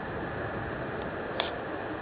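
Steady hiss of background noise with one faint click about one and a half seconds in.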